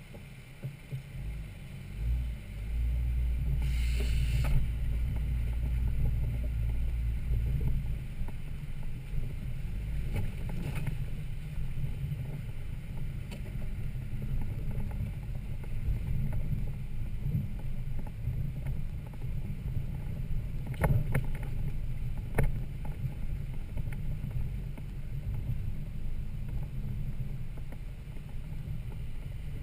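Toyota Land Cruiser 80 Series straight-six engine running at low speed off-road, a low steady rumble that is heavier for the first few seconds. A few sharp knocks come through it, two of them close together near the end.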